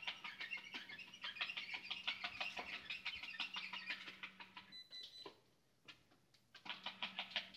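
Dot-matrix printer printing: a buzzing rattle of rapid pin strikes over a low motor hum. It runs about five seconds, stops, then prints another short burst near the end.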